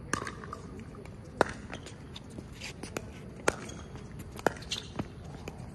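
Pickleball rally: paddles striking a hard plastic pickleball with sharp pops, several in quick succession, one every half second to a second.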